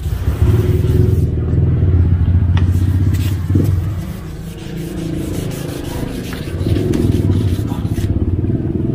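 A steady low engine rumble from a running vehicle, with the faint rubbing and scraping of wet 1500-grit sandpaper stroked across a plastic headlight lens.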